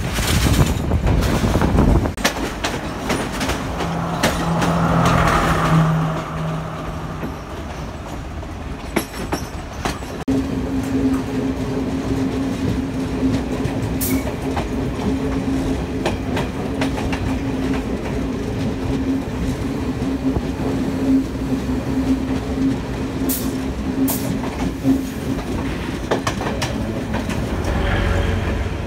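Sri Lanka Railway passenger trains passing close by at speed: wheels clattering over rail joints, with carriage rumble throughout. A steady low hum runs through much of the second half.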